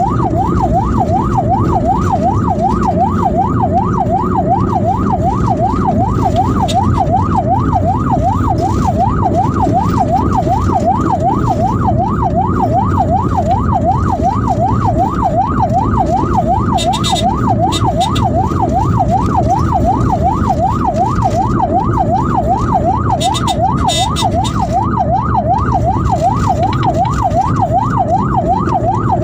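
Ambulance siren in a fast yelp, rising and falling about three times a second without a break, over the rumble of the moving vehicle.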